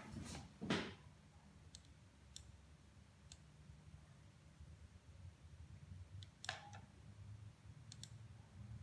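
Scattered faint clicks, a small cluster in the first second and a few single ones later, over a low steady hum.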